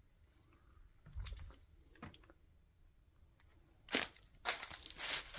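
Dry debris crunching and crackling: a faint crunch or two early on, then a louder, dense run of crunching near the end.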